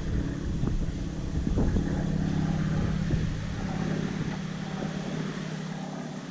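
Small propeller aircraft's engine running with a steady drone, its low rumble thinning out from about two-thirds of the way through.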